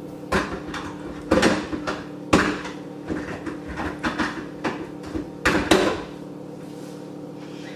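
A blender jar being handled and set onto its motor base: about six separate hard knocks and clunks spread over several seconds, two of them close together near the end.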